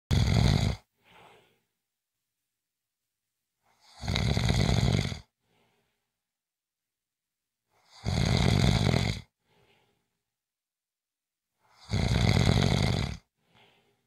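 A person snoring in a slow, regular rhythm: four loud snores about four seconds apart, each lasting a little over a second and followed by a faint short breath.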